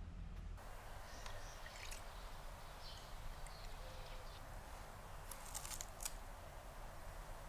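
A thin stream of liquid poured into a glass, a faint steady trickle, with a few sharp clicks about five to six seconds in.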